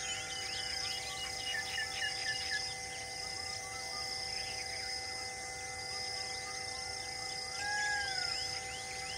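Forest ambience of many birds chirping and calling, with a high insect buzz that switches on and off every second or so. A quick run of five short bird notes comes about two seconds in, and a longer down-curving call near the end.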